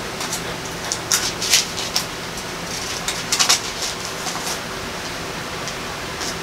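Paper rustling in a few short bursts, about a second in and again at around three and a half seconds, consistent with Bible pages being handled, over a steady hiss and low hum.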